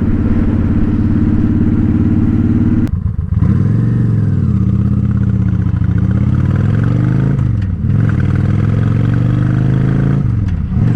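Honda Shadow Spirit 750's V-twin engine through a Cobra Streetrod Slashdown exhaust, idling steadily, then pulling away from a stop and accelerating. Its pitch rises in two runs, broken by brief drops at the gear changes just before the middle and near the end.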